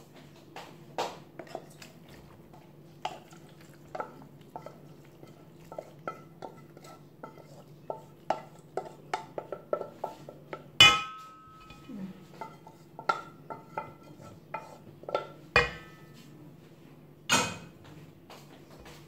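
Metal utensil scraping and tapping against a metal pot and a large metal baking pan as food is scooped out: a run of small clinks and taps, with a loud ringing clank about eleven seconds in and two more strong knocks near the end.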